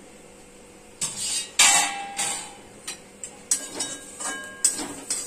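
Metal spatula scraping and knocking against a metal pan while grated cabbage and carrot filling is stirred. There is a loud metallic clatter with a brief ring about one and a half seconds in.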